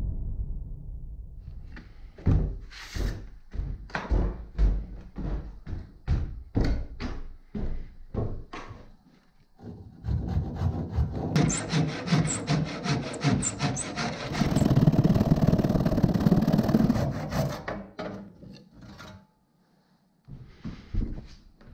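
Hand saw cutting through an old wooden staircase, first in separate strokes, then in a fast unbroken run of strokes. The sawing stops and then starts again with a few strokes near the end. A low rumble fades out at the start.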